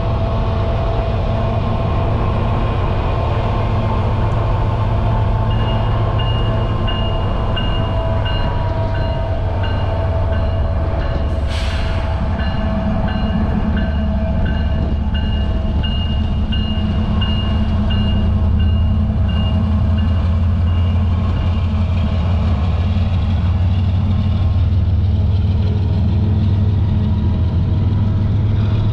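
Union Pacific coal train's GE ES44AC diesel locomotives running alongside, a steady low drone heard from a car pacing the train. Through the middle stretch a grade-crossing bell dings repeatedly, and there is a brief hiss about halfway through.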